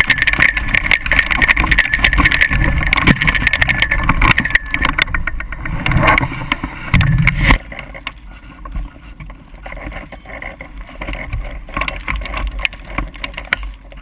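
Strong wind buffeting the camera microphone during a hang glider landing in 20-plus-knot gusty wind. About seven and a half seconds in it drops suddenly to lighter, gusting wind noise.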